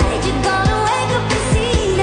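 Background pop song with a singing voice over a steady drum beat.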